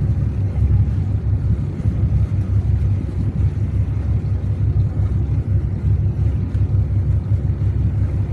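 Volvo Penta TAMD122P-B marine diesel, a turbocharged inline six, running steadily at low revs shortly after a cold start: a loud, even, deep rumble.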